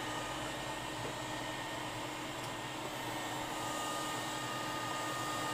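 Steady, even hiss of blowing air from microsoldering bench equipment, with a few faint steady hum tones under it.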